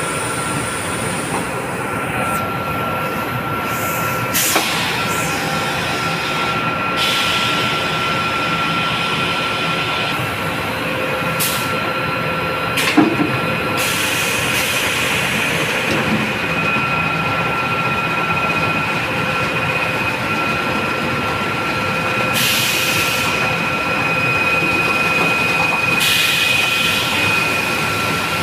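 Thyssenkrupp KB 1750 batch sugar centrifugal machine running: a loud, steady mechanical noise with a high, constant whine. Several short bursts of hiss come and go over it, with a brief clatter about halfway through.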